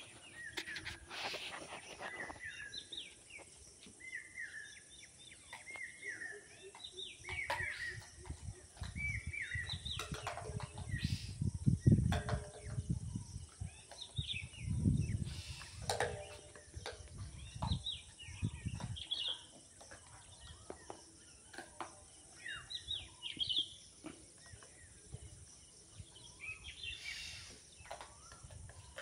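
Small birds chirping repeatedly in short rising and falling calls, with low rumbling noise on the microphone through the middle stretch.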